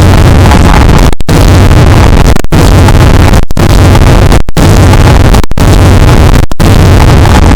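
Extremely loud, clipped, distorted noise that starts and stops abruptly, cut by brief dropouts about once a second.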